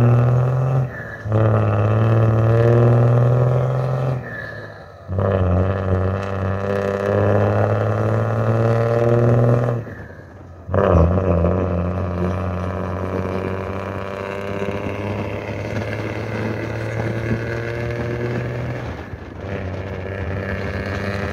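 Blue Bird bus engine accelerating through the gears. The pitch climbs steadily in each gear and drops at each shift, with shifts at about one, five and ten seconds in, then it runs more evenly.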